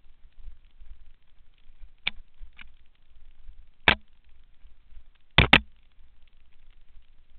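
Mountain bike clattering over bumps: a few sharp knocks about two seconds in, another near four seconds, and a loud double knock about five and a half seconds in, over a low rumble.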